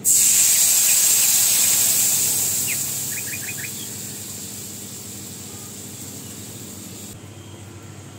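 Mustard paste poured into hot oil in a kadai, sizzling loudly at first and then dying down steadily as the oil cools under the paste.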